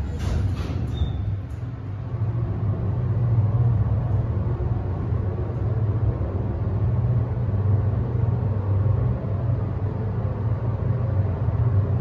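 MEI submersible hydraulic elevator car descending between floors, heard inside the cab: a steady low hum with rumble, and a short high beep about a second in.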